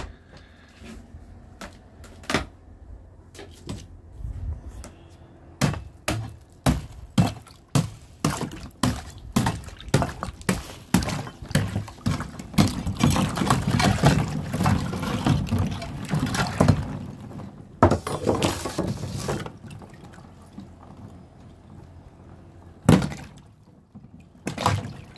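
Thin ice on the water of a plastic cold-plunge tub being broken up: a long run of sharp knocks and cracks, then a stretch of splashing and crackling as the broken ice moves in the water, with a few single knocks near the end.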